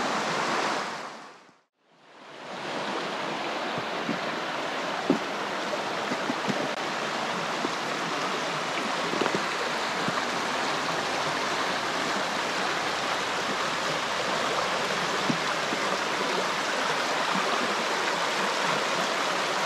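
River rapids rushing steadily over rocks, a constant hiss of flowing water. It fades out to silence about a second and a half in and comes back about a second later, with a few faint clicks in the first half.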